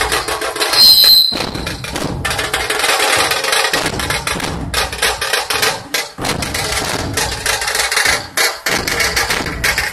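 Dhol-tasha ensemble of Maharashtrian dhol barrel drums and tasha drums playing a fast, dense beat, with a brief shrill high tone about a second in.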